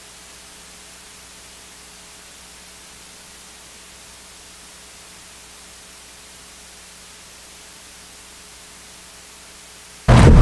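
Steady hiss with a faint hum: the sound system's background noise while no one is at the microphone. Near the end, loud noise cuts in suddenly.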